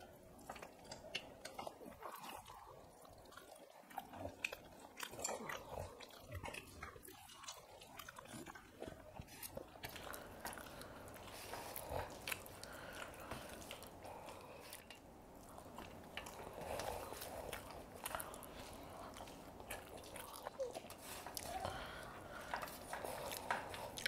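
Faint eating sounds of rice being eaten by hand from steel plates: fingers mixing and pressing rice against the metal, with soft chewing and mouth noises and a scatter of small clicks throughout.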